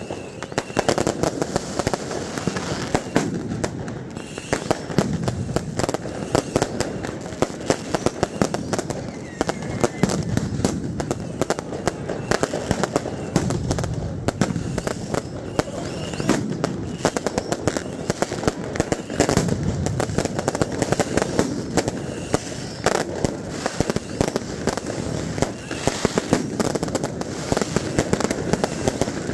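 Dense, continuous barrage of fireworks and firecrackers, many sharp bangs and cracks a second with no let-up, over the noise of a large crowd.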